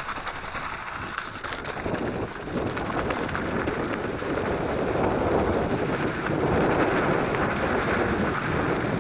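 Electric mountain bike tyres rolling over a sandy gravel road, with wind rushing over the microphone. The noise grows louder over the first few seconds as the bike gathers speed, then holds steady.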